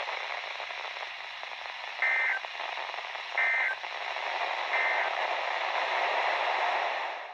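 Weather radio static hiss broken by three short, identical bursts of warbling two-tone digital data about a second apart: the EAS end-of-message code marking the end of the alert broadcast. The static cuts off at the very end.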